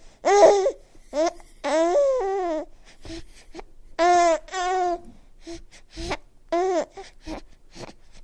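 Baby babbling and cooing: a string of short high-pitched vowel sounds that bend up and down, some drawn out for half a second or more, with quieter little squeaks and breaths between.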